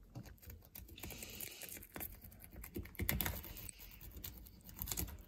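Serrated knife scraping along the side of a small toau (blacktail snapper): a run of fast, irregular scratchy clicks, busiest around the middle.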